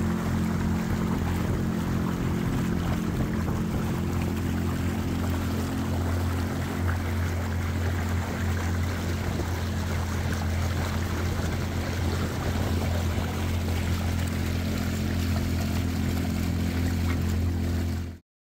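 Boat motor running steadily with a low hum, over wind and water noise; it cuts off abruptly near the end.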